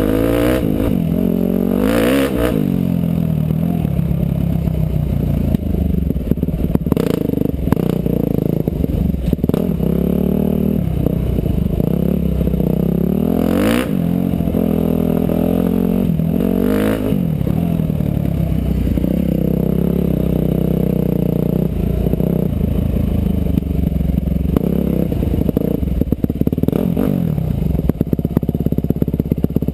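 Motorcycle engine running under way, revving up and falling back again and again as the rider works the throttle, with a few sharp knocks and clatters along the way.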